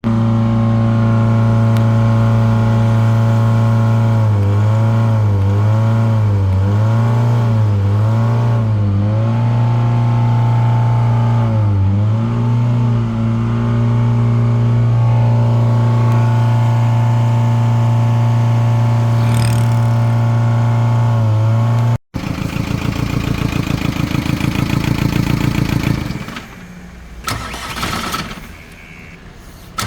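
VW Touran 2.0 TDI four-cylinder pump-injector diesel engine running at raised, steady revs, its pitch wavering up and down several times. About 22 seconds in, after a cut, the engine runs with a rougher, rhythmic diesel clatter, getting quieter near the end.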